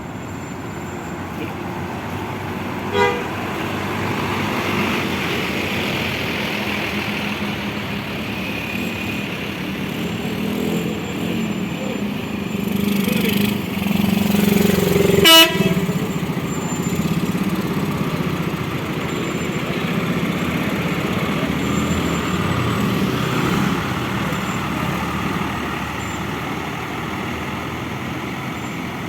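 Bus engines running, with two short horn toots: a faint one about 3 seconds in and a loud, sharp one about halfway through.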